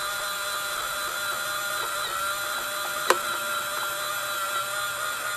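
Electric motor of a DIY automatic fish and chicken feeder running with a steady whine as it feeds whole chicken corn through the 25 mm feeder. A single sharp click about three seconds in and a few light ticks near the end.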